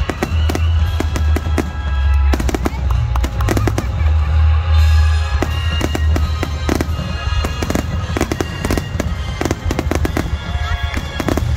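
Aerial fireworks shells bursting in a rapid, continuous barrage: sharp bangs and crackles coming many to the second over a constant deep rumble of detonations.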